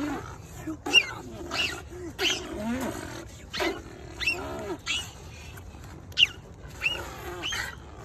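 A child beatboxing: mouth-made percussive bursts on a steady beat of about three every two seconds, mixed with sliding vocal sounds that rise and fall in pitch.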